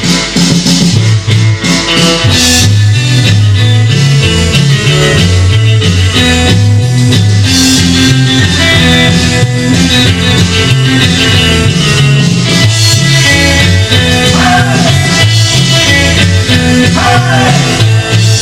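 Rockabilly-style band music with guitar and a bass line stepping from note to note, playing at a steady loud level.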